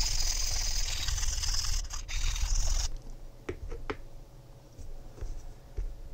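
A metal hand file rasping across a 3D-printed PLA plastic part for about three seconds, then stopping suddenly. A few light clicks follow.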